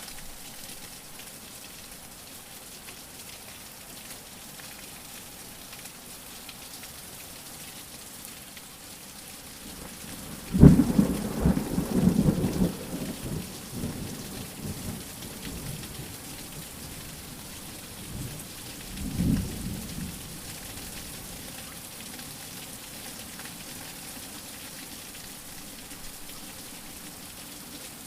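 Steady rain with thunder: a sudden loud crack of thunder about a third of the way in that rumbles on for a few seconds, and a fainter roll of thunder about two-thirds of the way in.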